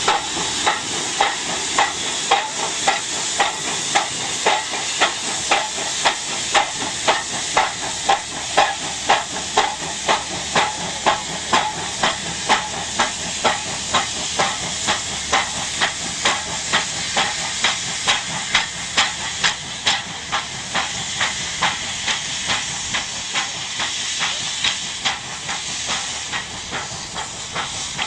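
Russian E-class 0-10-0 steam locomotive working, with sharp, even exhaust chuffs about two a second over a steady hiss of steam.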